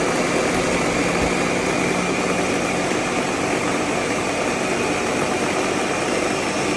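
Ninja countertop blender motor running steadily on its low setting, a continuous whir with a steady low hum, blending soaked sea moss and water while the mix is still liquid.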